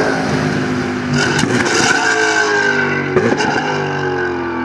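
BMW Z4 GT3 race car's V8 engine running hard on track, its pitch sliding downward. There are two brief sharp crackles, about a second in and again about three seconds in, and the sound begins to fade near the end.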